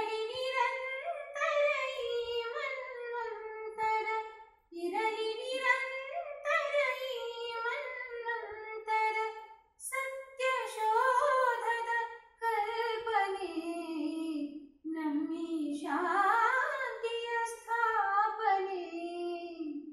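A woman singing a slow, unaccompanied melody in phrases of a few seconds with short breaths between them, heard through cinema speakers.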